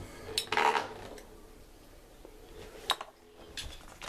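Metal Fight Beyblade spinning tops, Nightmare Rex against Vulcan Horuseus, clashing in a stadium just after launch, their metal wheels clinking: a clattering burst about half a second in, then a few scattered clinks.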